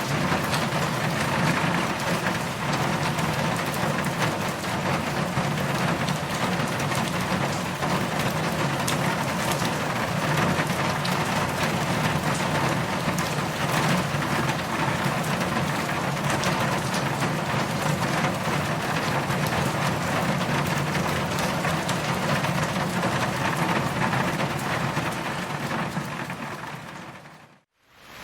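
A dense, steady ambience noise with a low rumble and scattered faint ticks, fading out to silence near the end.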